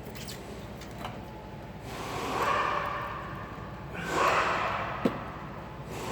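Two long, heavy breaths, about two and four seconds in, from a mechanic straining on a ratchet at the belt tensioner. A single sharp click follows shortly after the second breath.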